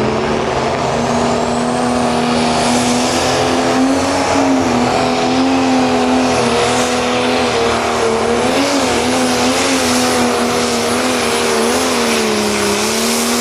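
Turbocharged diesel engine of a Pro Stock pulling tractor running hard at high revs under full load, with a high turbo whistle rising over the first few seconds and then holding. In the second half the engine note wavers up and down several times.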